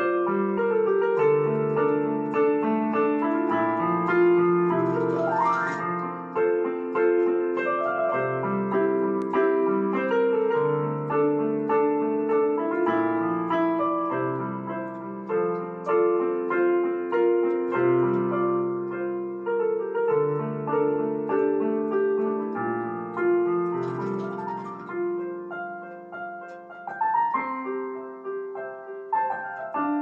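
Solo piano music: a slow melody over sustained chords, with a quick upward run about five seconds in and again near the end.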